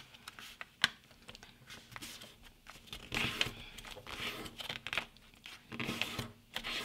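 A sheet of printer paper rustling and crinkling as it is folded and a crease is pressed down, in several short bursts, with a sharp tap just under a second in.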